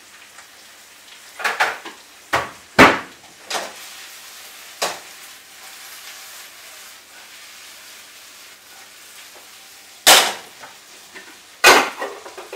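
Diced potato and crushed chilli frying in a pan with a steady sizzle, broken by sharp knocks and clatters of kitchen pans and utensils. There are about five knocks in the first five seconds, the loudest about three seconds in, then two more loud ones near the end.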